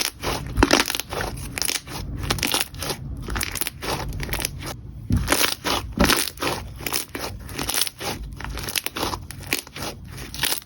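Clear slime being squeezed and kneaded by hand, giving a dense, irregular run of crackling clicks and pops.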